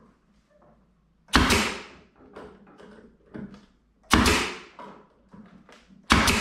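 Three sharp knocks during cabinet assembly, about two and a half seconds apart, each ringing out briefly, with lighter clicks and taps between them.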